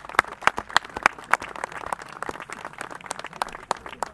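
Scattered applause from a small crowd of spectators: irregular hand claps, several a second, thinning out and fading toward the end.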